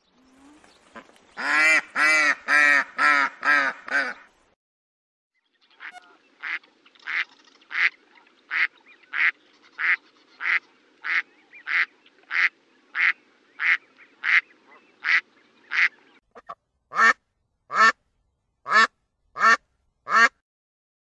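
Ducks quacking in three runs: a quick burst of about six quacks, then a long even series of about sixteen quacks at roughly one and a half a second, then a few sharper calls that slide down in pitch near the end.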